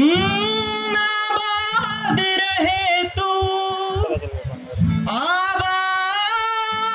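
Mixed choir singing a Hindi song in long held notes, swelling and rising in pitch at the start and again about five seconds in, accompanied by acoustic guitar and a drum kit.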